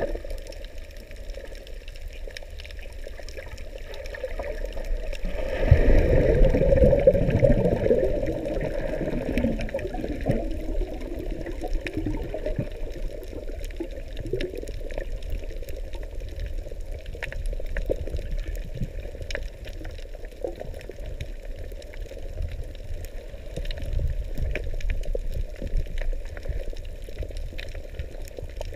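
Muffled underwater water noise picked up by a submerged camera: a low rushing and sloshing of water with scattered faint clicks. It swells louder for a few seconds about six seconds in, then settles back to a steady wash.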